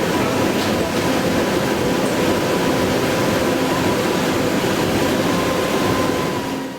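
Röders RXP801 high-speed milling machine cutting steel: a loud steady machining noise with a few steady tones from the spinning spindle and cutter, fading out near the end.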